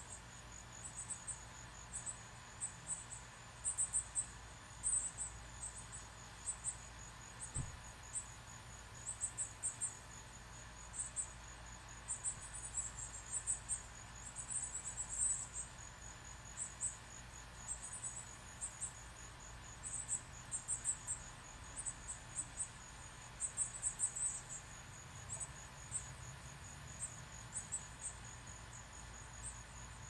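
Quick, high-pitched chirps in irregular bursts of several notes, over a steady, high, pulsing insect trill.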